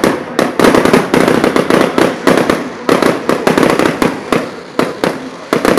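Aerial fireworks going off in a rapid, dense barrage of sharp bangs and crackles, several a second.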